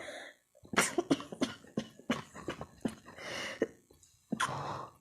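A person trying to force out a sneeze: a run of short, sharp breath bursts from the nose and throat, about three a second, then two longer breathy bursts in the second half. The sneeze seems stuck and does not come out cleanly.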